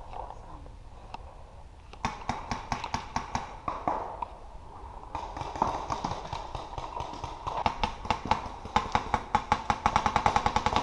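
Paintball markers firing in rapid strings of sharp pops, starting about two seconds in and turning faster and louder near the end, at about eight shots a second.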